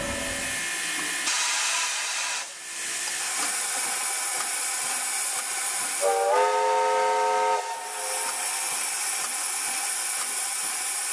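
Soviet L-class steam locomotive letting off steam with a steady hiss. About six seconds in it gives one blast on its steam whistle, a chord of several tones that bends up in pitch at the start and lasts about a second and a half.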